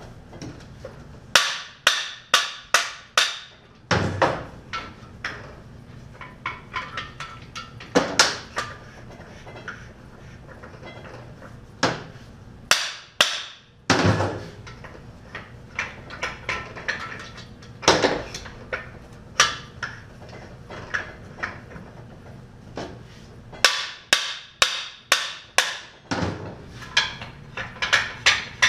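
Hammer blows driving the cam bearings out of a 350 small-block Chevy engine block with a cam bearing tool: short runs of several quick, sharp strikes separated by pauses.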